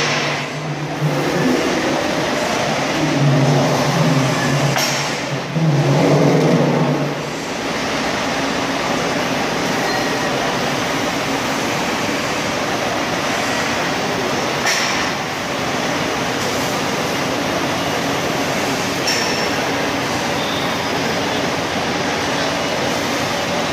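Steady mechanical running noise of a battery-powered coil-handling trolley driving and tilting a steel coil. A low droning tone comes and goes during the first several seconds, and there are a few brief clicks.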